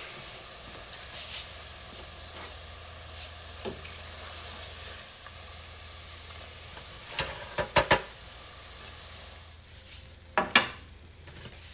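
Battered onion strings frying in hot canola oil: a steady sizzle that thins near the end. A few sharp knocks come about seven to eight seconds in, and one louder knock near ten seconds, as the skimmer scoops the strings out onto a wire rack.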